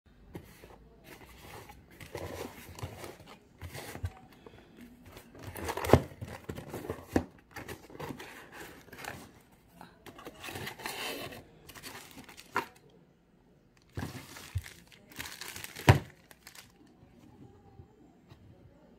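Cardboard shipping box being opened by hand: sealing tape and packing paper torn and crinkling as the flaps are pulled open. Two sharp knocks stand out, about six seconds in and again near sixteen.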